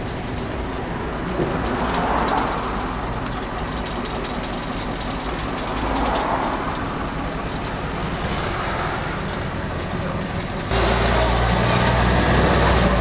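Engine and road noise inside a moving bus, rushing and swelling gently. About eleven seconds in it turns abruptly louder, with a steady low engine hum.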